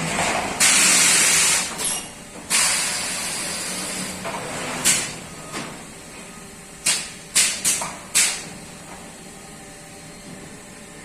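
Compressed-air hissing from a big-bag belt loop centring and cutting machine as it cycles. Two long hisses come first, then a quick run of short sharp puffs, typical of pneumatic cylinders and valves exhausting.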